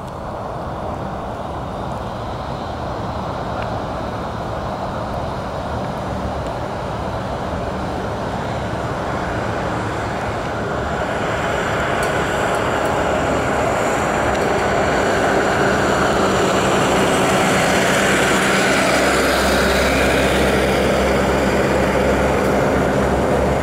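1926 Ford Model T Fordor's four-cylinder engine running as the car drives by, growing steadily louder through the first half and staying loud in the second.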